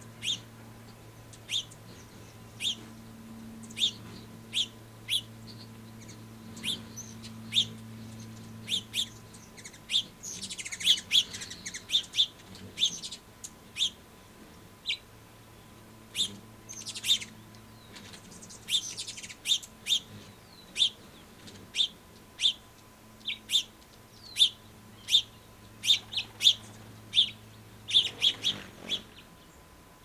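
House finches chirping: short, sharp single notes about once a second, with busier flurries of chirps around ten and nineteen seconds in. A faint steady low hum runs underneath.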